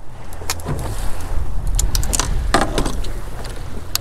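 A small boat under way, its engine giving a steady low rumble with water and wind noise over it. A few irregular knocks and clicks from gear being handled on deck come through it.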